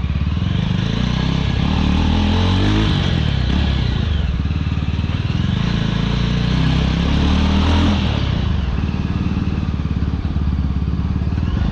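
Yezdi Scrambler's single-cylinder engine running under way with both silencers removed, the open exhaust loud and raw. The revs rise and ease off a couple of times, around two seconds in and again around six to eight seconds in.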